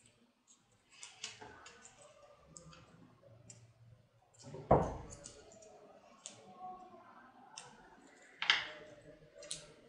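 Close-up handling of stiff paper strips being glued into loops: small clicks and paper rustles, with a knock about halfway through and a sharp click near the end.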